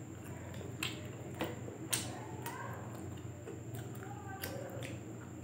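Two people chewing and eating momos, with several sharp wet clicks and smacks from their mouths over a steady low hum and a faint high whine.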